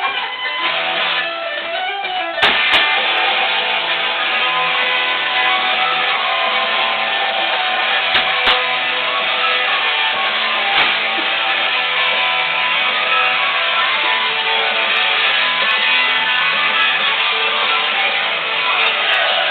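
Guitar-led music playing loudly, stepping up in loudness about two and a half seconds in, with a couple of brief knocks over it.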